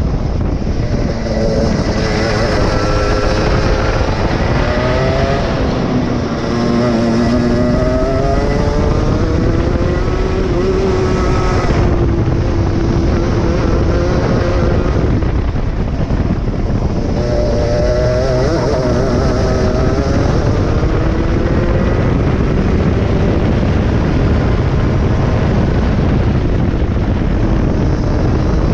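A 23 hp go-kart engine running hard, its pitch climbing under throttle and dropping off again several times as the kart laps, over a steady rumble of wind on the microphone.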